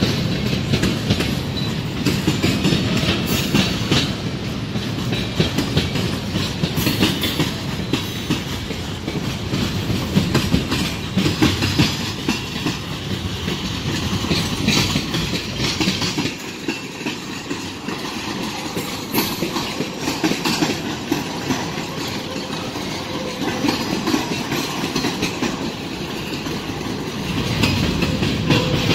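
Freight train cars (tank cars and covered hoppers) rolling past, their steel wheels clacking over rail joints over a steady rumble. The low rumble eases for a stretch in the middle, then swells again near the end.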